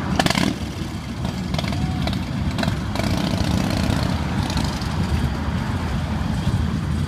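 Many motorcycle engines, Harley-Davidson cruisers among them, idling together in a steady low rumble. A sharp knock sounds just after the start, with a few fainter knocks a few seconds in.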